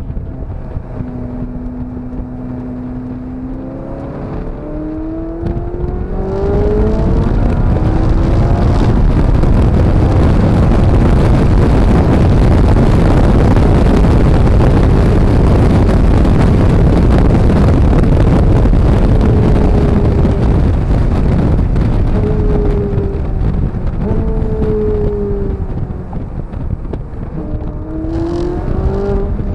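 Ferrari 458 Italia's V8 engine accelerating hard: the engine note holds steady, then climbs in pitch over several seconds into a long loud rushing stretch. Later the pitch falls off as it lifts, and it climbs again near the end.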